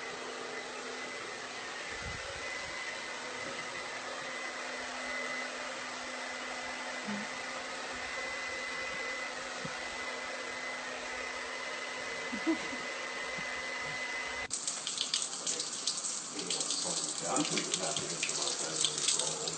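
A steady hiss with a faint high whine, which changes suddenly about fifteen seconds in to water running and splashing.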